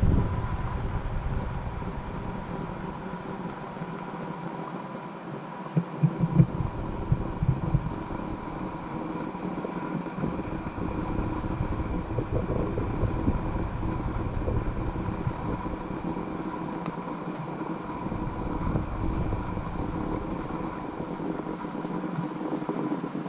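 Wind buffeting an action camera's microphone: a low rumble that comes and goes in gusts, with a few sharp knocks about six seconds in.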